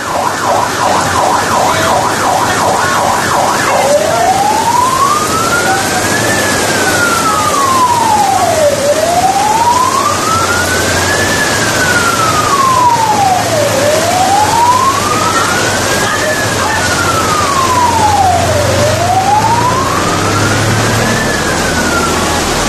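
Emergency vehicle's electronic siren, first on a fast yelp of about four pulses a second, then switching to a slow wail that rises and falls about every five seconds. Heavy rain hisses steadily underneath, with a low engine rumble.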